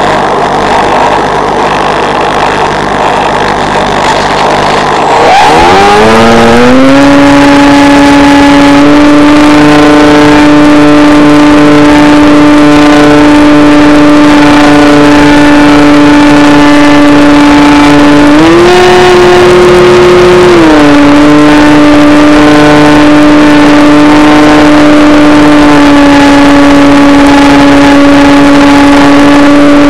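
Electric motor and propeller of a foam FPV trainer plane heard through its onboard camera microphone. At first there is only wind rush while it glides with the motor nearly off. About five seconds in, the motor spools up with a rising whine and settles into a steady propeller drone, which steps up in pitch briefly about two-thirds of the way through and then drops back.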